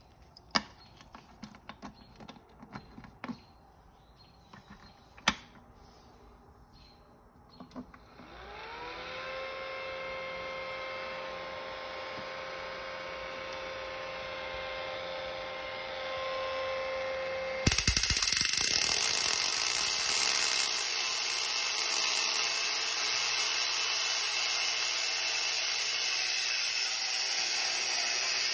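A few sharp clicks from the Tesla coil's control box being handled. Then, about 8 s in, the small air pump that quenches the spark gap spins up to a steady whine. About 18 s in, the homemade spark-gap Tesla coil switches on with a sudden, loud, continuous crackling hiss from its spark gap and the arcs from its top load.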